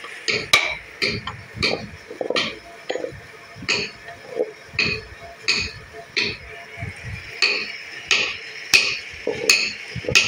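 Hand work on a carved wooden box: short, sharp strokes repeat steadily, about one and a half a second.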